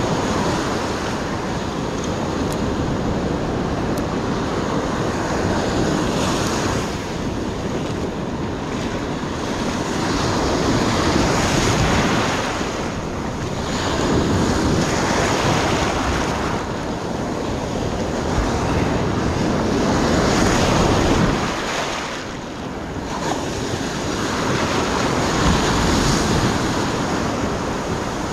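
Surf breaking and washing up the beach, swelling and easing every few seconds, with wind buffeting the microphone.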